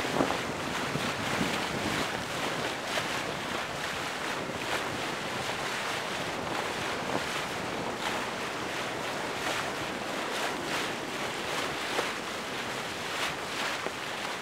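Steady wind noise buffeting the microphone over the rush of open water around a moving boat.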